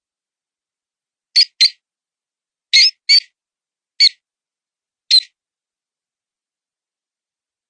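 Mouse distress squeaks used as a predator-call lure: six short, high squeaks, in two quick pairs and then two singles about a second apart.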